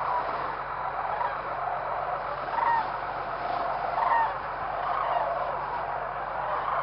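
A large flock of geese calling all together, a continuous chatter of many overlapping honks, with a couple of louder single honks about two and a half and four seconds in.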